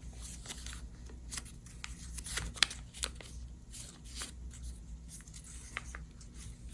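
A sheet of paper being folded back and forth and creased by hand, a string of crisp crinkles and small taps, with a faint steady low hum underneath.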